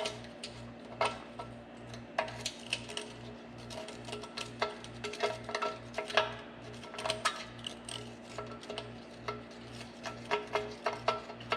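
Irregular metallic clinks and taps of hand tools working at the air compressor tank's drain opening after its clogged drain valve has been removed.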